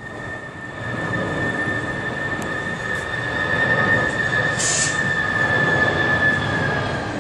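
Airbus A300-600ST Beluga's twin turbofan jet engines passing low overhead on landing approach: a steady jet rumble with a high whine that sinks slightly in pitch as the aircraft goes by, loudest about four to six seconds in.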